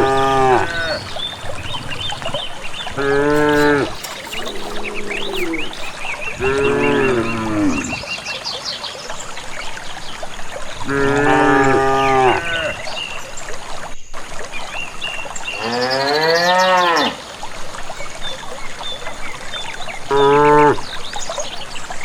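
Cattle mooing repeatedly, about seven calls a few seconds apart, some short and some drawn out; the longest call, a little past the middle, rises and then falls in pitch.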